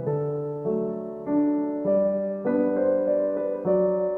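Background music: a piano playing soft held chords that change about every half second to a second.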